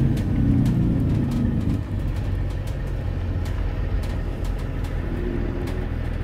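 A 2016 Cummins ISB inline-six turbodiesel running in a school bus, heard from the driver's seat: a strong low rumble for about the first two seconds, then quieter, lower running as the bus slows in traffic. Light clicks and rattles come through now and then.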